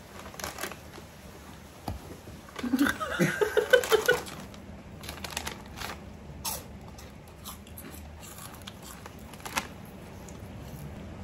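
Scattered crisp crunches of shrimp crackers being bitten and chewed, with a short burst of laughter from about two and a half to four seconds in.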